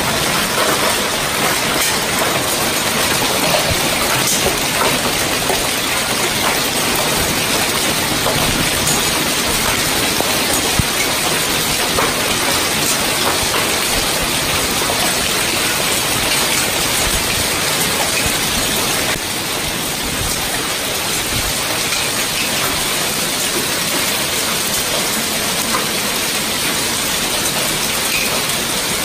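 Hailstorm: hailstones and rain coming down hard on pavement and parked cars in a loud, steady, dense patter, easing slightly about two-thirds of the way through.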